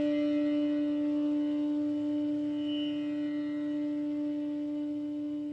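Bansuri, the North Indian bamboo flute, holding one long, steady low note that slowly fades.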